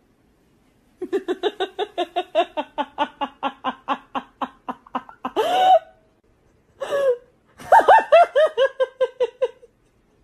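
A person laughing hard in a rapid run of ha-ha bursts for about four seconds, then two short high-pitched squeals, and a second, higher run of laughter near the end.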